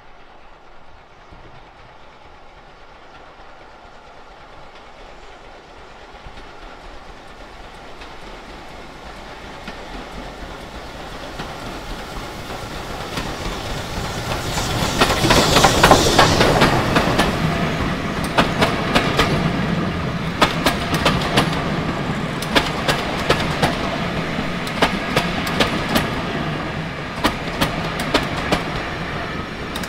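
Preserved steam train approaching and passing. The sound builds for about fifteen seconds to its loudest as the locomotive goes by, then the carriages roll past with a steady clatter of wheels over rail joints.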